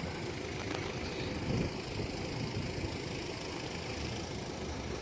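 Steady low rumble of road vehicle engines running.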